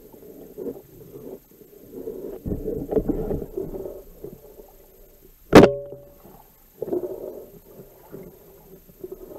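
Muffled underwater noise of a spearfisher moving in a river, uneven and coming and going. About halfway through comes a single loud, sharp crack with a short ring: the speargun firing underwater.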